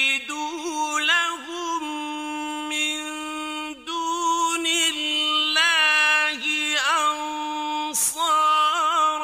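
A male reciter chanting the Quran in the ornate mujawwad style: long held notes with wavering, melismatic turns, broken by short pauses about four and eight seconds in.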